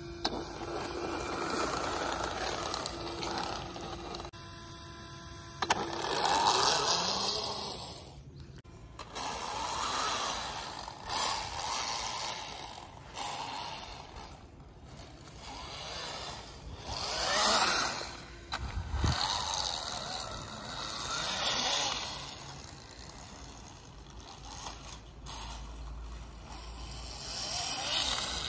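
Radio-controlled model snowmobile running over a thin layer of snow on grass and paving: its motor and track whir and scrape, rising and falling several times as it drives toward and away from the microphone.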